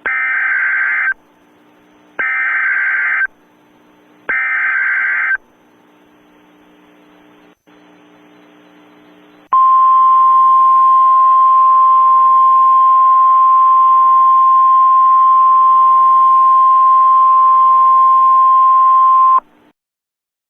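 Emergency Alert System SAME header: three bursts of harsh data screech, each about a second long and a second apart. After a pause of a few seconds comes the EAS attention signal, a single steady tone held for about ten seconds that cuts off abruptly.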